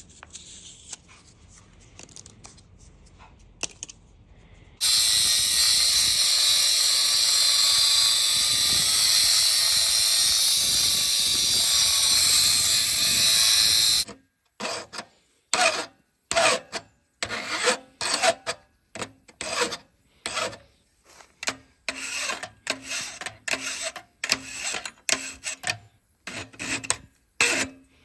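A loud steady hiss that lasts about nine seconds and cuts off abruptly, followed by a long run of short rubbing, rasping strokes, one or two a second, like a hand tool worked back and forth on metal.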